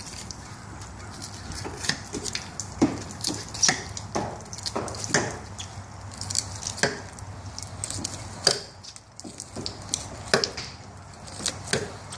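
Knife cutting a fillet off an amberjack on a plastic cutting board: irregular slicing and scraping with sharp clicks as the blade works along the fish.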